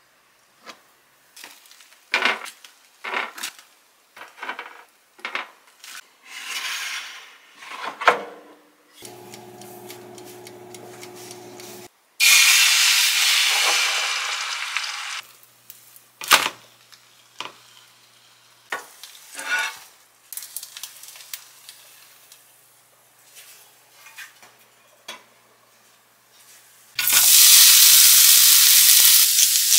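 A kitchen knife tapping on a cutting board while slicing ham strips, then beaten egg poured into a hot oiled pan and sizzling loudly, the sizzle fading over a few seconds. Near the end, shredded carrots go into the hot oil and fry with a loud, steady sizzle.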